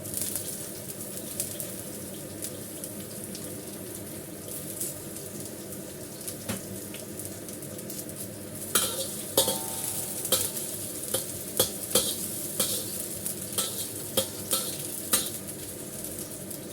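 Ginger slices and shallots sizzling in hot oil in a wok. From about halfway, a spatula stirs them, clicking and scraping against the wok about twice a second.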